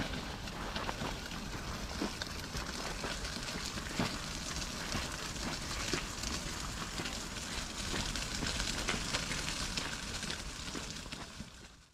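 Wheelchair wheels rolling over a gravel path: a steady crunching crackle with many small sharp clicks from the stones. It fades out at the very end.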